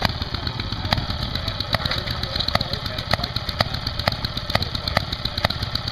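Maytag two-stroke engine running with sharp firing pops, about one a second at first and coming closer together toward the end, as a foot is pressed against it to put it under load.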